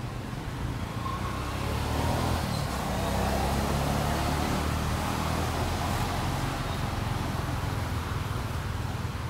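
A motor engine humming steadily, growing louder about two seconds in and then holding.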